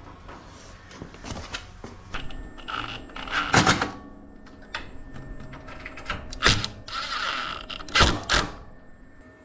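Sharp metal knocks and clanks from a rack-mount LiFePO4 battery module being seated and bolted into a steel server-rack battery cabinet. A few separate strikes are spread through, and the loudest two come close together near the end.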